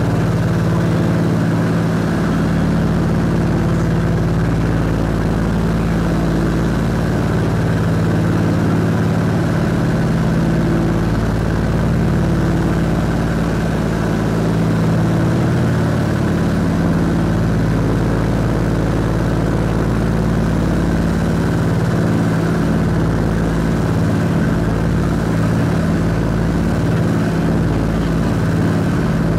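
Steady drone of a Scottish Aviation Twin Pioneer's two Alvis Leonides radial piston engines and propellers, heard from inside the cabin in level flight.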